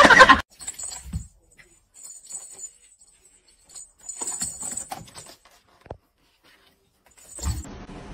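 A kitten rummaging in a cardboard toy box: several short bursts of scratching and rattling with a light jingle, separated by quiet gaps.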